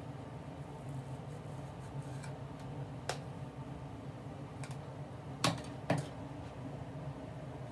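Flat iron being clamped and handled on hair: a few sharp clicks, the loudest two close together about five and a half seconds in, over a steady low hum.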